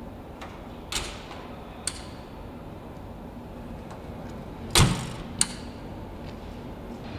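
Bus factory noise: a steady hum with a few sharp knocks and clanks, the loudest a heavy thump about five seconds in, like a door or panel shutting.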